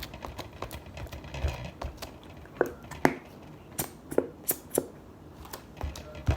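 Homemade metallic slime being squished and kneaded by hand, giving irregular sticky clicks and pops from trapped air bubbles, a couple of them short falling squeaks about halfway through.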